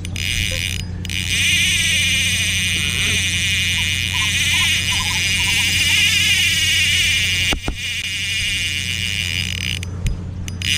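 Sougayilang 1000 spinning reel's drag buzzing as a hooked tambacu runs and strips line off the spool, a continuous high buzz that wavers in speed, with a brief break about seven and a half seconds in.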